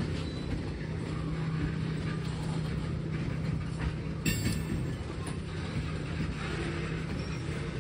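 Diesel freight locomotive running with a steady low engine hum over rail noise, and a brief sharp high-pitched sound about four seconds in.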